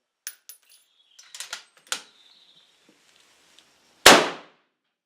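A few light metallic clicks and clinks, then a single loud gunshot about four seconds in that dies away within half a second.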